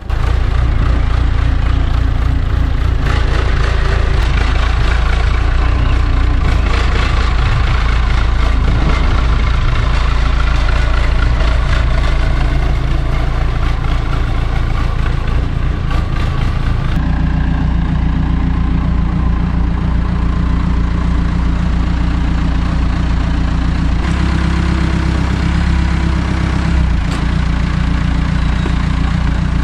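Telehandler's diesel engine running steadily as it moves heavy oak timber. The engine note changes abruptly a little over halfway through and again near the end.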